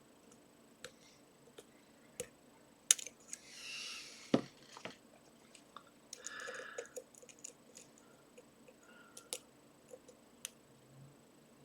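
Irregular small clicks and taps of a lock pick and tension wrench working the pins of a Trioving 55-series pin tumbler lock, loudest twice around the middle. Two brief soft rustling noises come in between.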